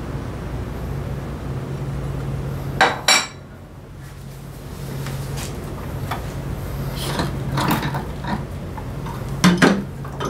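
Metal scooter drive parts and hand tools clinking and clanking as they are handled. There are two loud clanks, about three seconds in and near the end, and lighter clicks between them, over a steady low hum.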